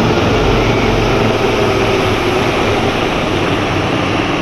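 Helicopter flying past, with a steady, dense noise from its rotors and engines.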